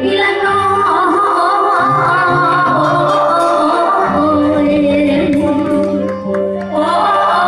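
A woman singing a Thai luk thung song live through a stage PA over the band's amplified backing; her voice bends and wavers in pitch. The music dips briefly about six seconds in.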